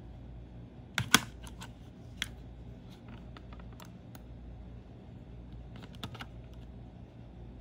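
Hard plastic clicks and taps of a wireless mouse being handled and its AA battery worked in the battery compartment: a sharp double click about a second in is the loudest, followed by scattered lighter ticks and a short cluster of clicks about six seconds in.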